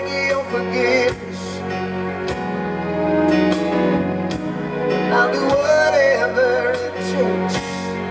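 Live R&B band playing a slow groove: sustained keyboard chords, bass and drums on a slow steady beat, with wordless vocal runs gliding over it twice.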